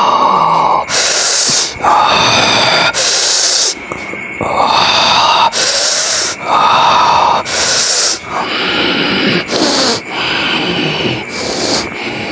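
A man's heavy, forceful breathing as he goes into a possession trance: harsh hissing breaths about every two seconds, alternating with strained, pitched groaning.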